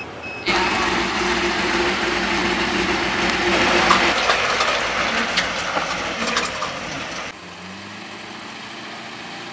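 Trophy truck engine running as it rolls over dirt and gravel, with the crunch of tyres and small stones ticking. About seven seconds in the sound cuts to a quieter truck engine idling steadily.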